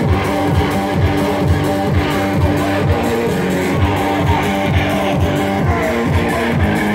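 Band music: guitar over a steady bass-and-drum beat, about two beats a second.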